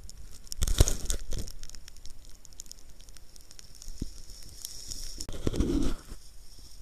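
Mountain-bike plus-size tyres rolling over wet road, gravel and leaves, with crackling and pattering of grit and water under the tyres. Scattered clicks and two louder bursts of rumble, about a second in and near the end.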